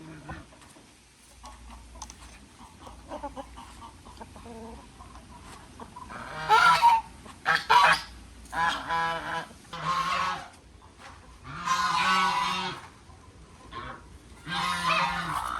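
Domestic waterfowl calling: quiet at first, then a run of about six loud, nasal honks and quacks starting about six seconds in, some broken into quick repeated notes.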